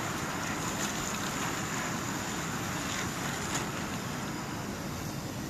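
Steady wind rushing over a phone microphone while cycling, mixed with road noise, with a few faint clicks.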